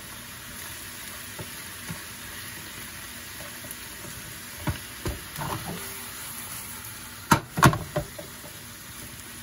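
Pea shoots and bacon sizzling in a frying pan while being tossed with chopsticks: a steady frying hiss. A few sharp knocks about seven to eight seconds in are the loudest sounds.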